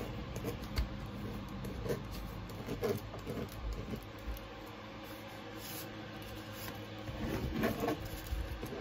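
Multi-colour ballpoint pen scratching and tapping on paper in short strokes as someone writes, busier near the end, over a faint steady hum.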